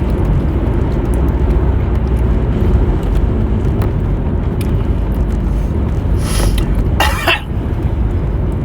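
Steady low rumble of a car's cabin, with a short cough about seven seconds in.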